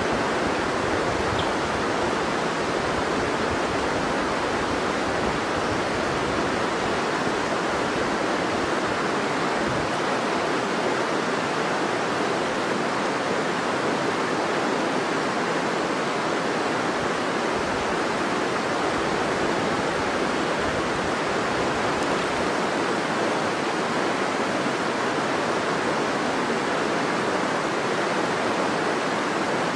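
River water flowing: a steady, unchanging rush of water.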